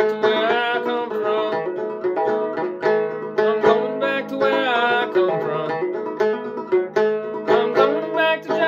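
Kentucky-style mountain banjo tuned gCGCD, picked in a steady rhythm as a tune is played.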